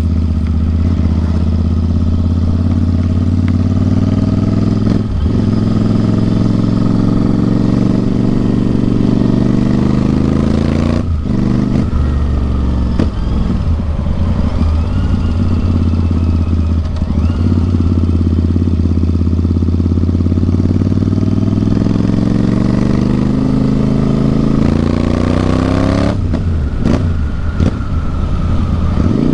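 Royal Enfield Interceptor 650 parallel-twin engine running through a loud aftermarket Atom full-system exhaust while being ridden. The note rises and falls with the throttle, with brief breaks about five seconds in, again around eleven seconds, and near the end.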